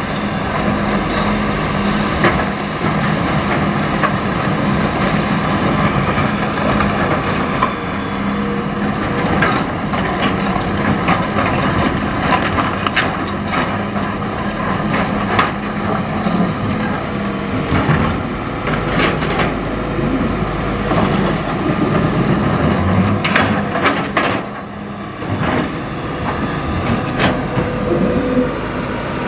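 Hitachi EX200-5 excavator's diesel engine running steadily under load, with irregular knocks and clatter of river stones against the steel bucket as it digs gravel.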